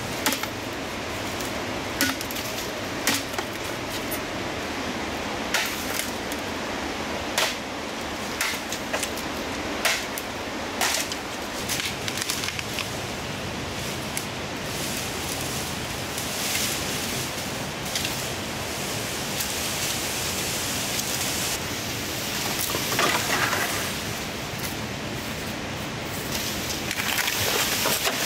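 A blade chopping into green bamboo stalks: about a dozen sharp, irregular strikes in the first half, then bursts of leafy rustling later on as the stalks are handled. Underneath is a steady rush of flowing river water.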